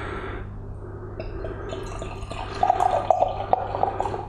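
Beer poured from a glass bottle into a stemmed tulip glass: a soft splashing stream, turning about two and a half seconds in to louder, quick gurgling pulses from the bottle neck.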